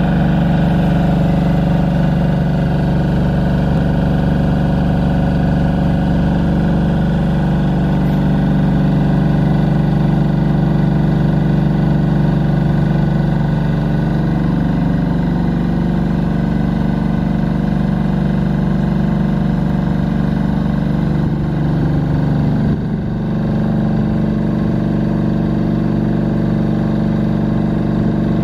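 Kohler diesel engine of a light tower's 4 kVA generator set running steadily while it powers the lamps. About two-thirds of the way through, its note shifts slightly and the level dips for a moment before it settles and runs on.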